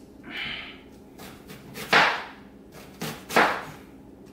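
Chef's knife slicing through a red onion and knocking on the cutting board: a brief crisp cut near the start, then three sharp knocks in the second half, the first and last the loudest.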